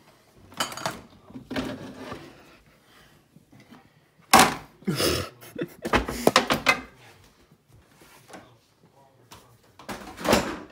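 Plates and plastic food containers knocked and shuffled about on refrigerator shelves, a run of sharp clatters, with the fridge door being shut near the end.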